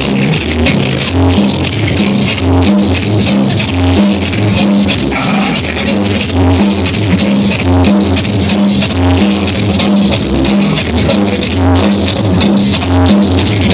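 Loud dance music played through a sonido sound system, with a repeating bass line and fast, even percussion ticks over it.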